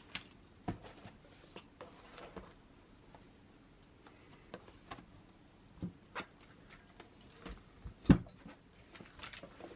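Light handling sounds of small objects: scattered soft taps and clicks, with one sharper knock about eight seconds in.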